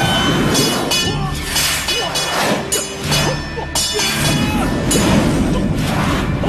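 Martial-arts fight sound effects: a quick run of punch and kick impacts, swishes of swinging arms and crashes, over background music.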